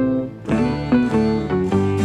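Background music with plucked string notes, briefly dipping just before half a second in.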